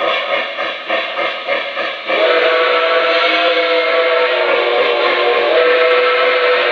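S-gauge Lionel Flyer Berkshire model steam locomotive's sound system playing steam chuffs, about two a second. About two seconds in, it breaks into a long, steady steam whistle that holds to the end.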